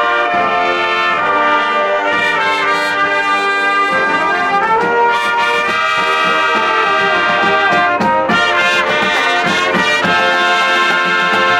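Marching band brass (trumpets and trombones) playing a piece in full chords, with short percussion strokes through the middle.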